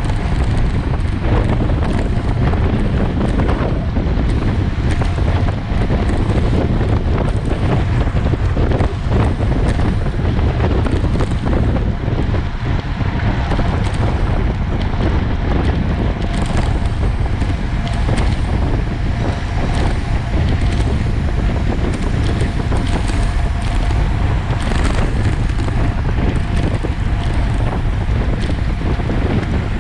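Heavy wind buffeting the microphone: a loud, steady, low rumbling rush with no let-up.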